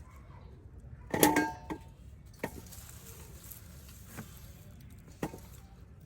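A sharp metallic clink with a short ring about a second in, followed by four faint knocks spread over the next few seconds, amid the work of digging potatoes.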